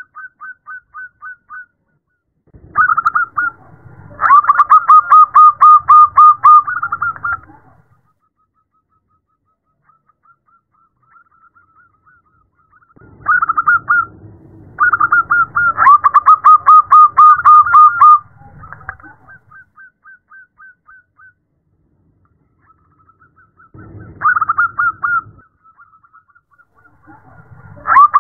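Zebra dove (perkutut) calling: loud bouts of rapid, staccato cooing notes, several a second, each bout lasting a few seconds and coming back about every ten seconds, with fainter runs of notes in between. The uploader presents it as a female's call to draw in males.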